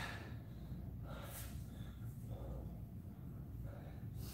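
A person breathing hard: short, airy breaths about a second and a half apart, the first the loudest, over a low steady hum.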